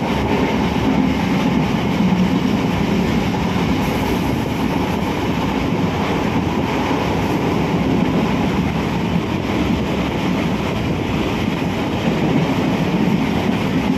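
Suburban local passenger train running at speed, heard from beside its open doorway: a steady, loud rumble of wheels on rails and rattling carriage.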